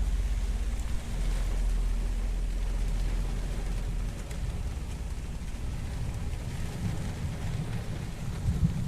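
Rain pouring during a thunderstorm, with low rumbling of thunder that swells in the last few seconds.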